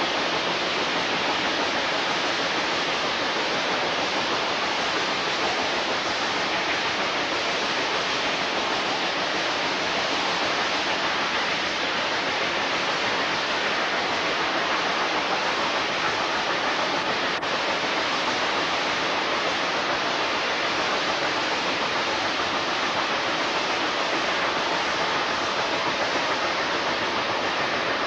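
Steady, even rushing noise recorded while riding aboard a moving steam locomotive, with no exhaust chuff rhythm standing out.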